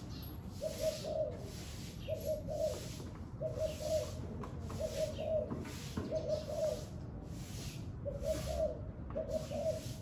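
Spotted dove cooing: short two-part coo phrases repeated about once a second, seven in all, with a pause of about a second before the last two. Wind hisses in gusts and rumbles on the microphone behind it.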